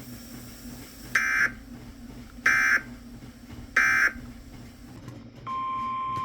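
Emergency Alert System SAME header: three short bursts of warbling digital data tones, about a second and a quarter apart. Then, near the end, the steady single-pitched NOAA Weather Radio warning alarm tone comes on, signalling that a new warning is about to be read.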